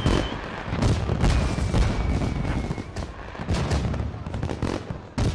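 Fireworks going off overhead: a steady run of bangs and crackling bursts, with a long whistle from a shell about a second in.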